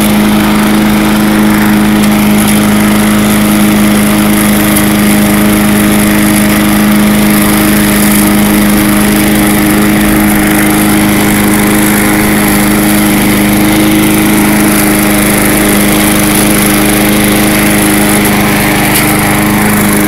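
Tecumseh engine of an MTD Lawn Chief 3.75 hp push mower running steadily at an even speed. It runs after dirt in the line to the carburetor was cleared.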